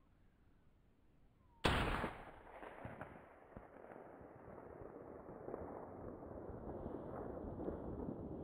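A single hunting rifle shot about two seconds in, slowed down so it comes out as a sudden deep boom. A long, rough rumbling noise follows it and grows slowly louder toward the end.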